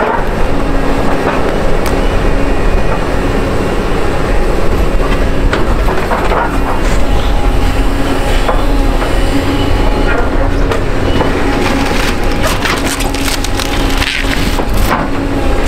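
Doosan excavator running under a steady hydraulic hum while its demolition grapple crunches and rips the wooden framing and sheet-metal siding of a pole barn, with wood cracking and splintering. The cracks and snaps come thickest near the end.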